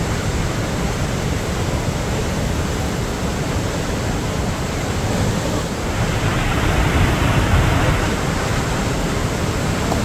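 Godachinamalaki Falls in full flood: a wide curtain of muddy water plunging over the rock ledge with a dense, steady rushing noise, which grows louder for about two seconds a little past halfway.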